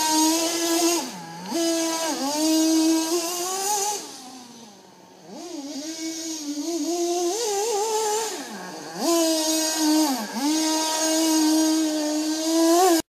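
HSP Camper nitro RC buggy's small two-stroke glow engine running hard and revving up and down, its pitch dropping sharply several times as the throttle is lifted. It fades to a faint whine about four seconds in, comes back loud, and cuts off suddenly at the end.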